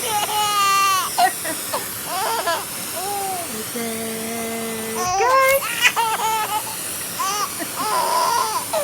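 A baby laughing in repeated giggles and belly laughs, set off by a vacuum cleaner. A steady hum from the vacuum cleaner runs for about a second midway.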